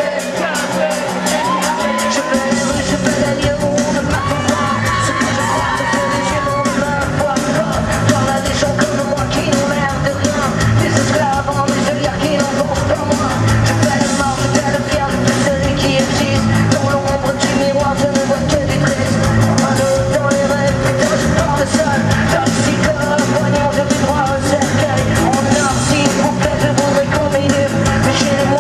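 Live rock band playing with a male singer shouting and singing into a microphone, heard in a large concert hall. The bass and drums come in about two seconds in and the full band carries on to the end.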